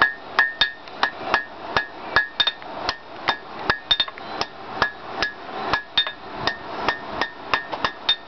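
Hand hammer striking hot half-inch mild steel bar on an anvil, drawing it out, about two blows a second, each with a short metallic ring.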